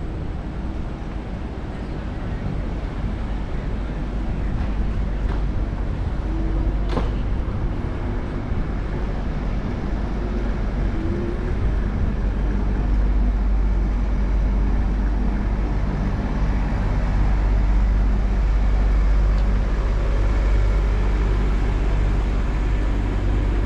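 City street traffic noise with a steady low rumble from riding along the road on a scooter, slowly growing louder. One short sharp tick about seven seconds in.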